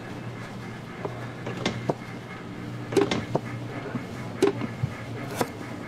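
Clear plastic food pan and its plastic lid being handled by gloved hands: a scattering of short knocks and clicks, the loudest about three seconds and four and a half seconds in, over a steady low hum.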